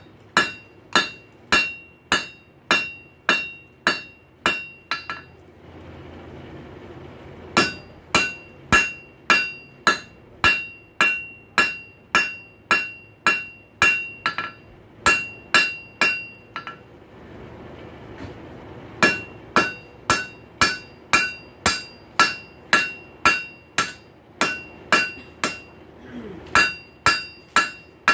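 Hammer blows on an anvil flattening the sides of a hot steel rail spike, about two strikes a second, each with a bright metallic ring. The blows come in three runs with two short pauses between them.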